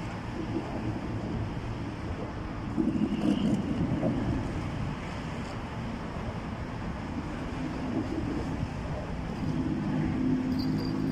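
Low, steady rumble of road traffic on an overhead highway, swelling briefly about three seconds in and again near the end.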